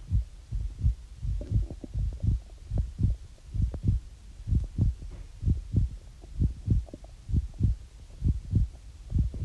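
Heartbeat sound effect: low double thumps, lub-dub, repeating steadily about once a second.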